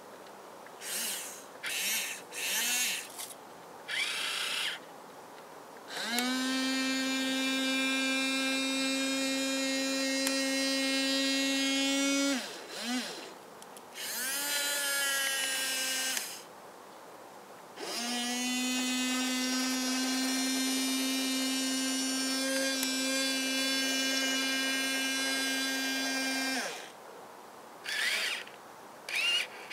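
Small electric gear motors of an RC model excavator whining as the boom and arm move. Several short blips come first, then a steady run of about six seconds, more short blips, a second steady run of about eight seconds, and a few more blips near the end.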